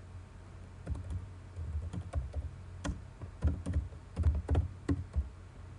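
Typing on a computer keyboard: an irregular run of keystroke clicks beginning about a second in.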